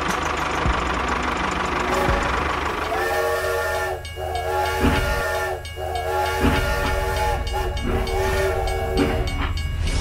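Steam train sound: a steady hiss, then from about three seconds in a multi-note steam whistle blowing in several long blasts with short breaks between them.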